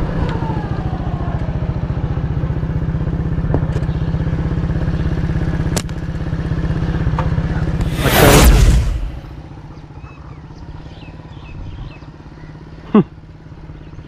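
A motor vehicle's engine running steadily, with a loud rush of noise about eight seconds in, after which the engine sound falls away to a much quieter background. A few faint high chirps follow, and one short sharp sound near the end.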